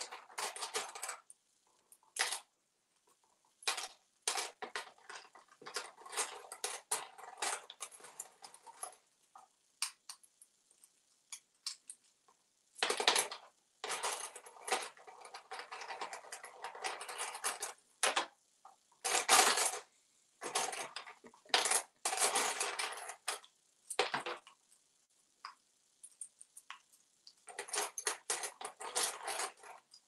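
Toy coins clinking and rattling in a plastic cash tray as an African grey parrot picks through them with its beak, in irregular bursts separated by short pauses.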